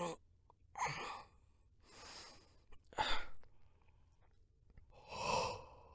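A man sighing and breathing out hard as he stretches his neck: about five short sighs a second or so apart, the loudest near the end.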